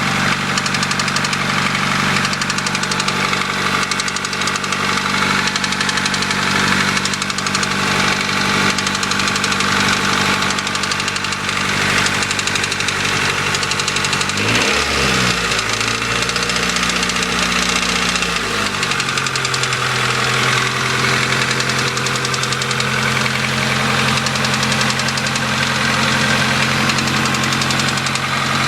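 1992 Honda Accord's 2.2-litre four-cylinder engine idling with a steady rapid knocking/ticking. The engine speed rises about halfway through, holds for a few seconds, then drops back. The owner is unsure whether it is rod knock or valves that need adjustment.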